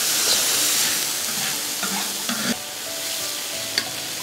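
Vermicelli noodles stir-fried in a large wok: a loud sizzling hiss as water is poured into the hot pan, easing after the first second, with the spatula scraping and clicking against the wok.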